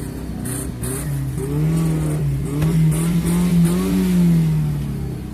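Car engine being revved: it climbs about a second and a half in, holds at higher revs with small wobbles, then drops back toward idle near the end.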